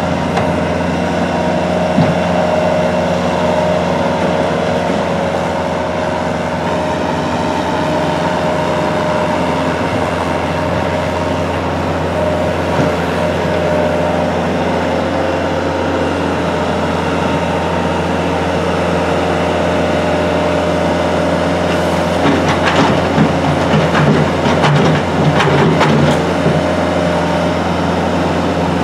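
SM2 railway snow-removal train running with a steady machine hum. Near the end comes several seconds of clattering and knocking.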